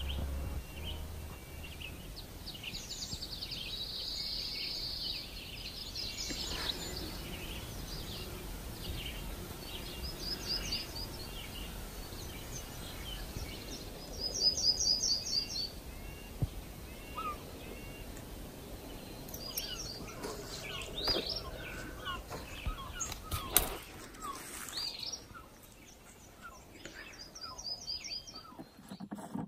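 Songbirds singing at dawn: repeated quick high trills and short chirps from several birds over a quiet, even background, with a single sharp click about three-quarters of the way through.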